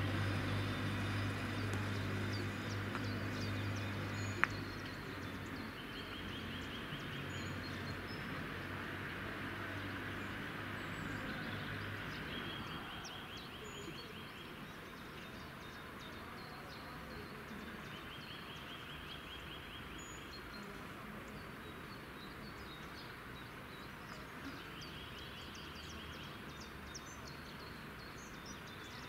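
A low, steady engine drone fades away over the first twelve seconds, with a single click about four seconds in. Over faint outdoor background noise a bird repeats a short trill of about two seconds, roughly every six seconds.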